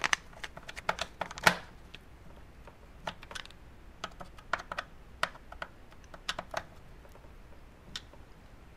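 Small, sharp metallic clicks and taps of a screwdriver working the screws of a Beogram 4002/4004 transport-lock bracket, the screws turning into the metal chassis. A quick cluster of clicks comes in the first second and a half, then single clicks every second or so.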